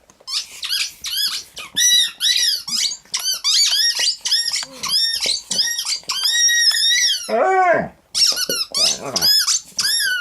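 A dog's squeaky toy squeaking over and over as the dog chews and squeezes it, about two high squeaks a second, with one lower falling squeal about seven seconds in.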